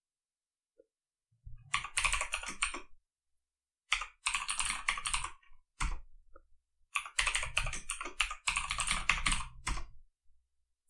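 Computer keyboard typing: quick runs of keystrokes in several groups with short pauses and a lone key press near the middle, as a password is typed in and then typed again.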